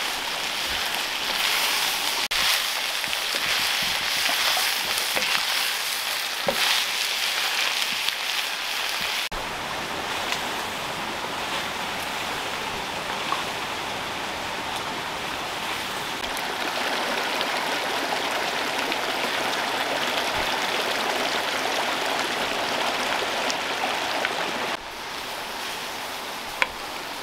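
Steady rushing of water from a spring-fed stream, a continuous hiss that shifts abruptly about nine seconds in and again near the end.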